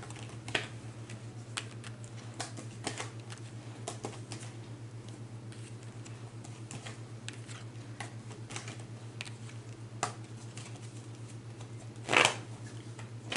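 Tarot cards being handled: scattered light clicks and taps of cards against each other and the table, with one louder brushing sound about twelve seconds in. A steady low hum runs underneath.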